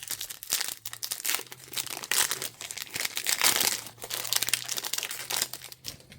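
Plastic wrapper of a football trading card pack being torn open and crinkled by hand, a dense crackling that stops suddenly at the end.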